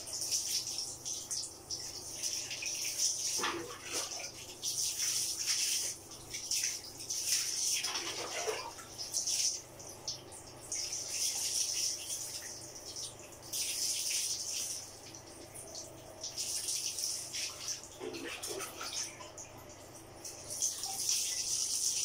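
Water poured from a plastic tub over a dog's back, splashing onto the tiled floor, in repeated pours a few seconds apart.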